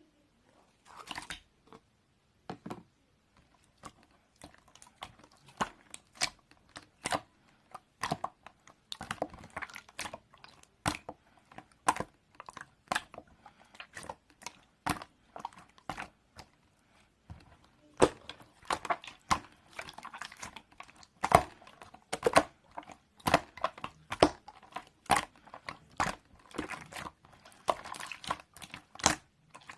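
Irregular sharp clicks and taps with some crinkling in between, coming more thickly in the second half.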